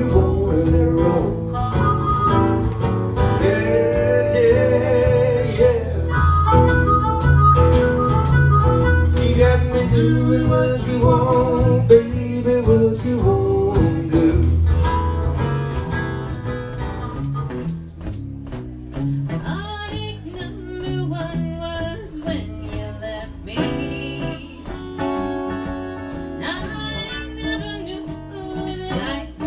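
Live acoustic country-blues music: strummed acoustic guitar with a harmonica playing wavering lead lines. About halfway through, the music fades into a different, quieter live recording of strummed acoustic guitars.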